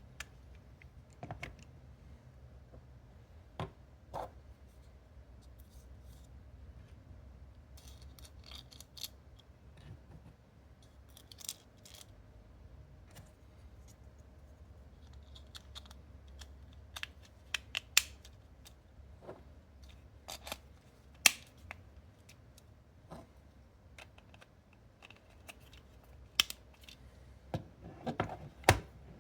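Scattered light clicks and taps of hard plastic pieces being handled and fitted together, irregular and unhurried, with a few sharper clicks about two-thirds of the way through and a quick cluster near the end, over a faint low hum.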